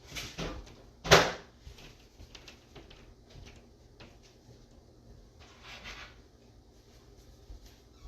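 Handling noises: a sharp knock or bump about a second in, the loudest sound, with a few softer knocks, small clicks and a brief rustle a little past halfway.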